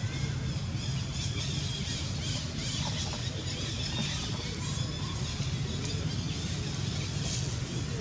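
Outdoor background noise: a steady low rumble with a light hiss over it and a few faint high chirps now and then.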